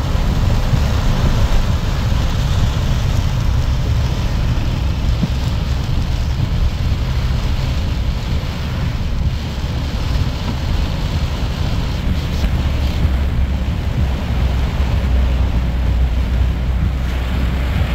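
Steady rushing of wind and rain in a thunderstorm, with wind buffeting the microphone as a deep, continuous rumble.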